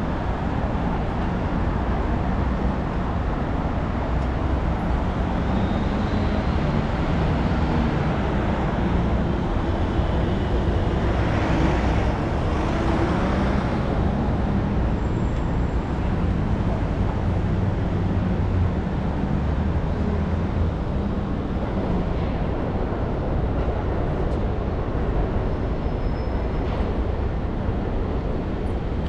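City street traffic: a steady low rumble of engines and tyres from cars and trucks on a busy avenue, with a louder vehicle passing by about halfway through.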